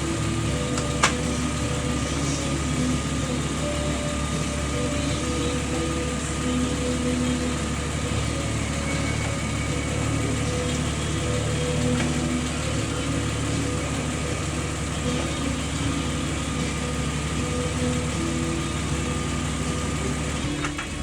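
Jeep Wrangler's straight-six engine idling steadily, with a single sharp click about a second in. The engine cuts out right at the end, a stall the owner traces to a loose positive wire at the fuse box.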